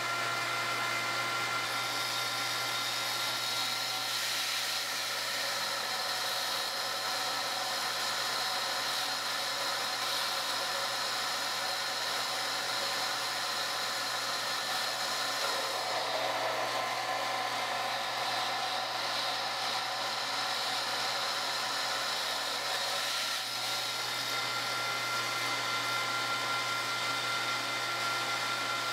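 Centrifugal pump running steadily, circulating water through a reservoir test rig with a steady machine whine. About halfway in, while the control valve is turned, the sound changes and turns duller for several seconds, then returns to its earlier steady whine.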